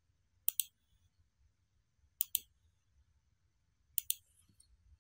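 Computer mouse buttons clicking three times, each a quick pair of sharp clicks, while working in CAD software.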